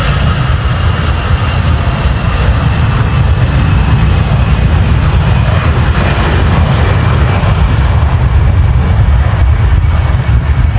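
Jet airliner's engines, a loud steady rumble with a deep low end and a broad hiss above it.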